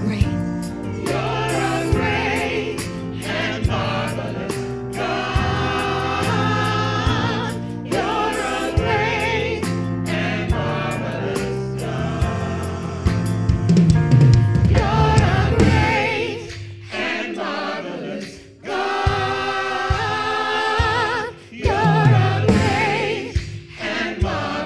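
Gospel praise-and-worship singing by a group of singers on microphones, with vibrato in the voices, over keyboard accompaniment. The music thins out briefly about three-quarters of the way through.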